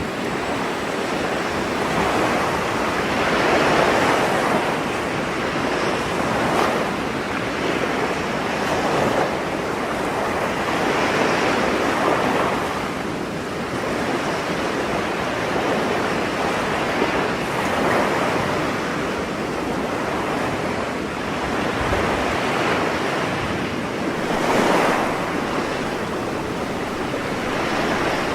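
Sea surf breaking and washing on the shore: a steady rush of waves that swells and eases every few seconds.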